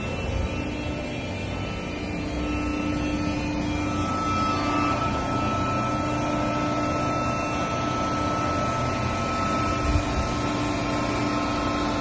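Full-automatic cardboard baler and its inclined feed conveyor running: a steady mechanical hum with a faint whine, and a single light knock near the end.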